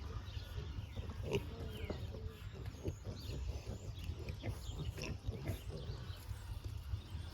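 American guinea hogs and piglets grunting, a scatter of short, soft grunts and snuffles.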